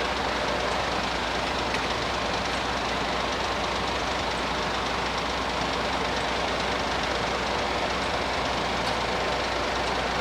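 Train passing over the level crossing, a steady running noise with no break.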